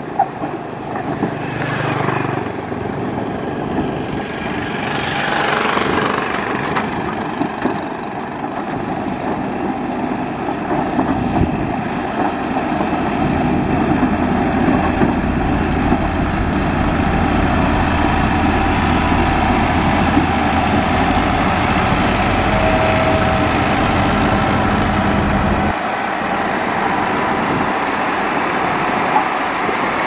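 Diesel engine of a Dresser motor grader running steadily under load. A deeper low hum joins about eleven seconds in and cuts off abruptly about 26 seconds in.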